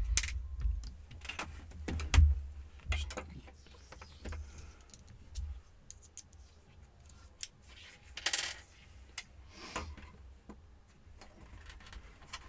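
Small clicks and taps from handling the plastic parts, screws and tools of a laptop being taken apart, with a louder knock about two seconds in and two short scrapes later on.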